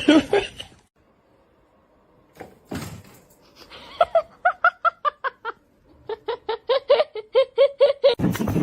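A person laughing in two quick rhythmic runs of short pitched 'ha' pulses, about six or seven a second, the second run lower in pitch than the first.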